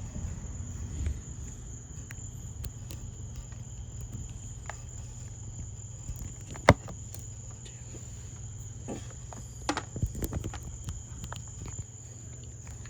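Light clicks and taps of multimeter probes being fitted into an e-scooter battery's discharge port. One sharp click comes about two-thirds of the way through, with a few more knocks soon after. A steady high insect drone and a low hum run underneath.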